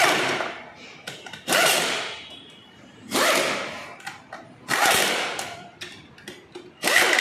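An air-powered wrench fires in five short bursts about a second and a half apart, each starting sharply and fading as it runs bolts on a scooter's engine and transmission casing.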